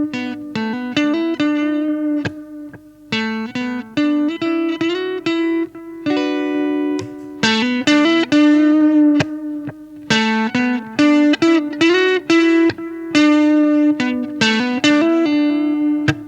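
Electric guitar played through a Caline CP-12 Pure Sky transparent overdrive pedal into a Vox AC15 amp: picked phrases of single notes and chords, with short breaks between phrases.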